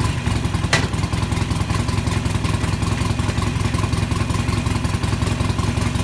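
Harley-Davidson Sportster 1200C's air-cooled V-twin idling steadily just after start-up, with one sharp click about a second in. There is no lifter ticking, the sign that the rocker boxes went back on at top dead center without collapsing a lifter.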